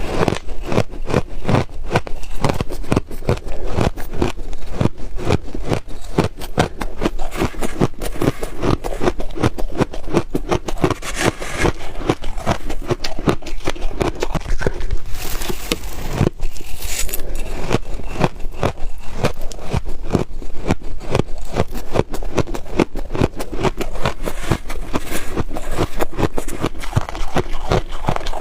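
Freezer frost being scraped and crunched in the mouth: a dense, unbroken run of crisp crunches and crackles.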